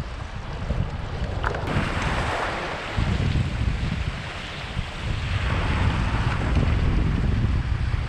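Waves washing against shoreline rocks, with wind rumbling on the microphone. Two swells wash in, about two seconds in and again around five seconds in.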